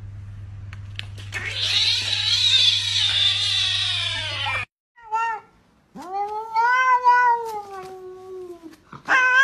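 A kitten crying loudly and roughly for about three seconds, cut off abruptly. Then a cat gives a short call and a long drawn-out meow that rises, holds and slowly falls, with another loud meow starting at the end.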